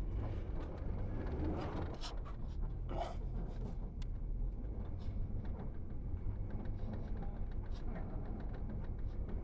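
Car engine running steadily at a low idle while the car is eased backward, with a few faint knocks.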